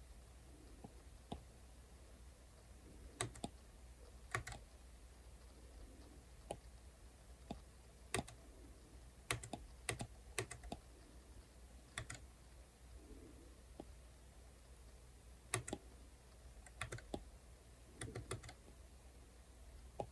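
Stylus tip tapping and clicking on a tablet's glass screen while drawing: about a dozen sharp, irregular taps, some in quick pairs.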